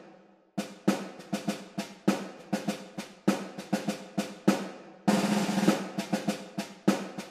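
Background music played on snare drums: a quick, uneven run of sharp drum strokes, with a short roll about five seconds in.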